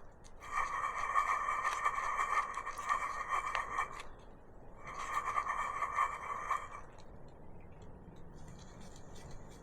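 Honda PCX drive-shaft bearing being turned: a rough, steady whirring with a scatter of clicks, in two spells of a few seconds each, the second shorter. The rough noise when it turns is the sign of a worn bearing, the reason it is being replaced.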